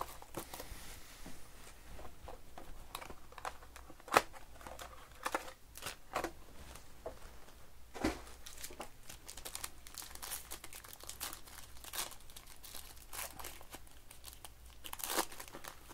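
Plastic wrapping on a Panini Mosaic Choice football trading-card box and pack being crinkled and torn open by hand. Scattered crackles run throughout, with a sharp snap about four seconds in and a denser burst of crinkling near the end.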